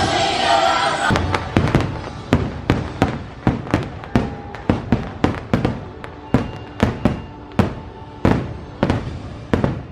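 Aerial fireworks bursting overhead in a rapid run of sharp bangs, about two or three a second, each trailing off briefly. Music plays for about the first second before the bangs begin.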